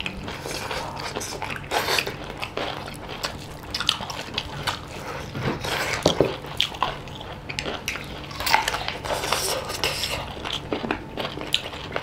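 Eating sounds: fingers tearing cooked chicken and working curry and rice on plates, with chewing and biting, heard as an irregular run of small clicks, smacks and rustles.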